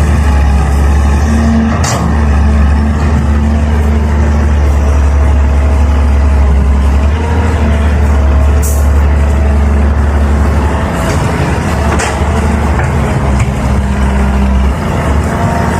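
Caterpillar 320 hydraulic excavator's diesel engine running steadily with a deep drone, with a few sharp knocks, about two seconds in and again around nine and twelve seconds.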